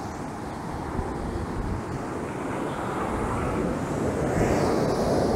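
Surf washing up the beach, the rush of water building and growing louder toward the end, with wind rumbling on the microphone.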